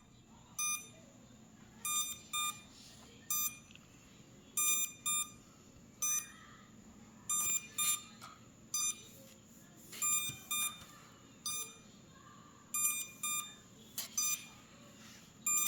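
F31 drone giving short, high-pitched warning beeps, singly and in pairs, about one group every second or so, while its propellers fail to spin up.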